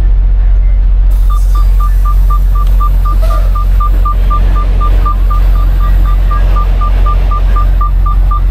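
Semi-truck diesel engine running with a steady low rumble, heard from inside the cab while the truck moves slowly. About a second in, a rapid electronic beep starts and repeats evenly, about four beeps a second, all on one pitch.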